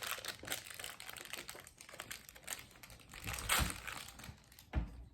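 Plastic toy packaging crinkling and crackling as a compartment of a Disney Doorables multi-pack is opened by hand, with a louder crackle about three and a half seconds in and a short thump near the end.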